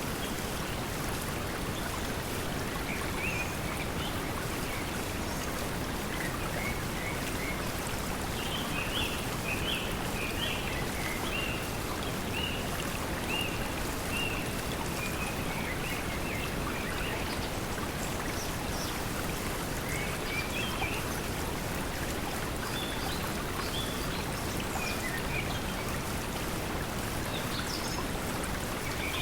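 Steady pink noise blended with flowing water, with small birds chirping on and off above it, busiest from about nine to seventeen seconds in.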